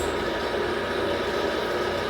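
A powered shop machine is switched on and runs steadily: a sudden start, then a constant mechanical hum and whine with a noisy roar underneath.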